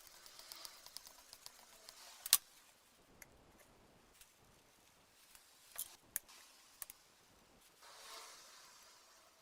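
Quiet hand-work noises on the table fan's parts: faint rubbing, a sharp click about two seconds in, and a few lighter clicks around six to seven seconds.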